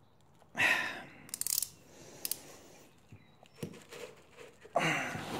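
Hand tools and small metal engine parts clicking, clinking and rattling against a motorcycle cylinder head as its rocker-arm fasteners are worked loose. There are two louder bursts, one about half a second in and one near the end.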